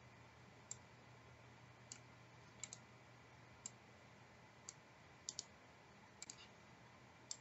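Sparse, sharp clicks from working a computer at a desk, roughly one a second and several in quick pairs, over near silence.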